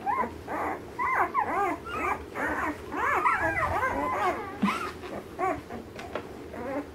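Ten-day-old Alaskan malamute puppies whimpering, many short rising and falling squeaks overlapping, thickest in the first half and thinning toward the end.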